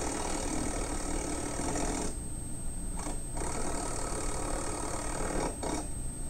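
Electric impact wrench hammering nuts down onto the carriage bolts of a steel bracket, running in bursts: a run of about two seconds, a short blip, another run of about two seconds, then a brief blip near the end.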